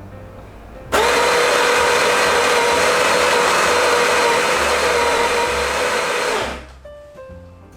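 Electric coffee grinder grinding espresso beans for an 18 gram double shot. The motor starts suddenly about a second in, runs with a steady whirr for about five seconds, then winds down.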